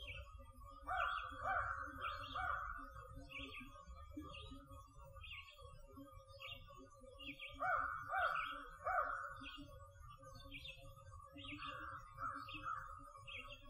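Crows cawing in three series of about three harsh caws each, over a songbird repeating a short high note a little more than once a second, with a steady low rumble underneath.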